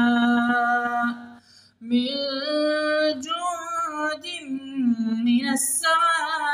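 Melodic Quran recitation in Arabic, the voice holding long drawn-out vowels in tajweed style. A brief pause for breath comes about a second and a half in, then the chanting resumes.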